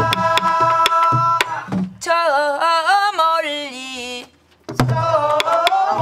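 Voices singing a Korean sinminyo folk song with buk barrel drums beating the dongsalpuri rhythm. About two seconds in, the drums drop out and a single voice sings a wavering line alone. After a brief pause, singing and drumming come back in.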